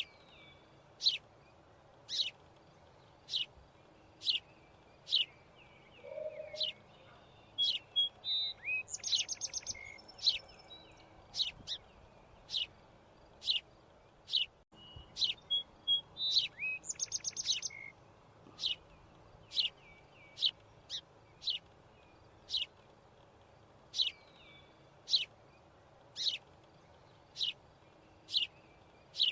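A bird chirping over and over, one short sharp chirp about every second, with a quick rattling trill twice, about eight and sixteen seconds in.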